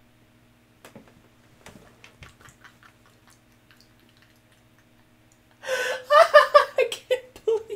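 A man bursting into loud, choppy laughter about two-thirds of the way in, after a few near-quiet seconds of silent, shaking laughter with only faint clicks.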